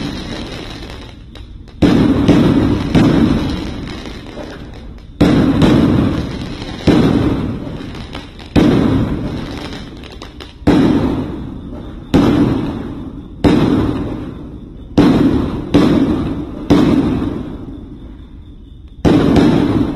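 Aerial fireworks bursting one after another, about a dozen sharp bangs spaced one to two seconds apart. Each bang is followed by a long, fading low rumble.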